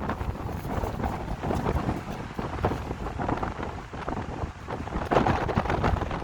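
Strong wind buffeting the microphone in irregular gusts, a low rumbling roar that grows louder near the end.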